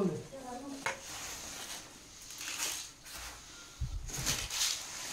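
Uncooked rice scooped by hand and dropped into steel plates: a soft hiss of falling grains on metal, loudest about four seconds in, with a few low knocks.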